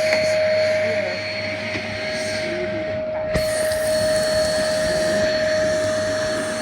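Karcher WD 3 P wet/dry vacuum running at full power, a steady whine over a rush of air, with one sharp knock about halfway through.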